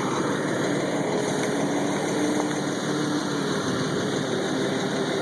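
Car engine running steadily, heard from inside the cabin, with a low pitched hum that shifts a little in pitch.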